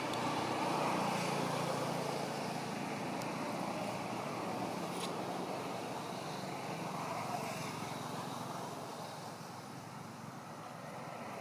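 Steady outdoor background noise with the low hum of a distant motor vehicle running, easing off a little after about eight seconds.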